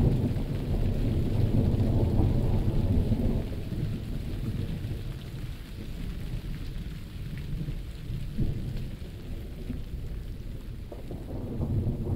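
Thunderstorm: steady rain with a long, low rumble of thunder that is heaviest over the first few seconds, dies away, and starts building again near the end.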